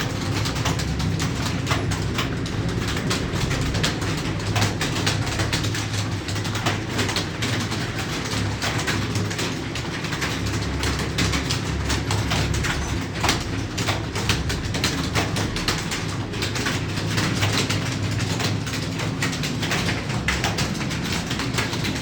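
Rapid, irregular clicking of computer keyboard keys being typed, several strokes a second, over a steady low hum.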